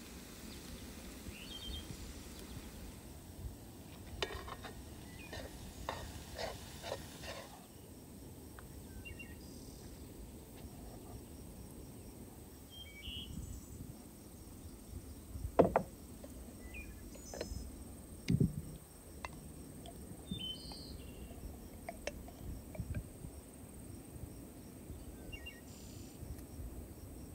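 Outdoor ambience: a steady faint hiss with small birds chirping now and then. A run of light clicks comes about four to seven seconds in, and two sharp knocks of clay or wooden kitchenware on a wooden table come past the middle, the first the loudest sound.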